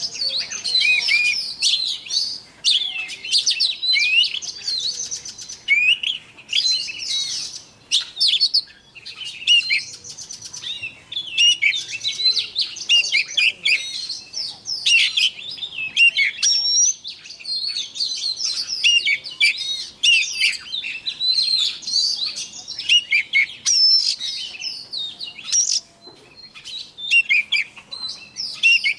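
Oriental magpie-robin singing a long, varied song of clear whistles, pitch glides and fast trills, with only brief pauses.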